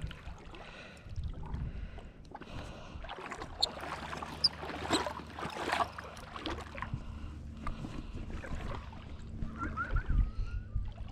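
Water sloshing and splashing, with wind on the microphone, as a snagged log is dragged in through the shallows on a spinning rod and reel.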